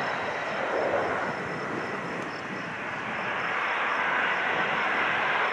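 Business jet engines: a steady jet roar with a thin high whine, growing a little louder in the second half.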